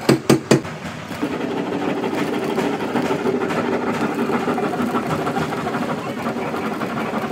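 Three sharp metal knocks in quick succession, then a workshop machine starts running steadily with a low, even drone.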